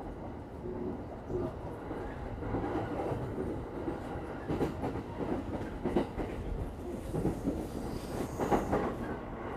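Inside a commuter train car standing at a station with its doors open: a steady low hum with scattered knocks and clatter.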